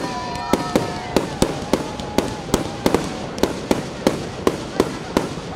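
Fireworks going off in quick succession: a string of sharp bangs, about three a second, as aerial bursts fire one after another.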